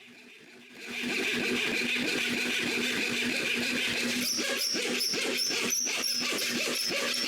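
Small electric power tool running steadily while cutting away the tabs left on a carved wooden wing. From about four seconds in it bites in with short repeated bursts, about three a second.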